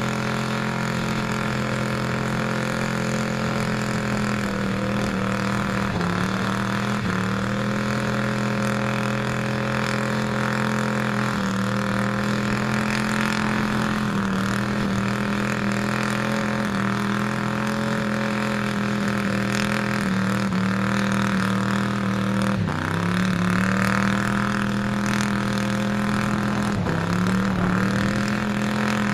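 Engine of a square-body Chevrolet pickup running hard at high revs while stuck in a mud bog, its wheels spinning. The engine note holds high, dropping briefly and climbing back again several times as it strains.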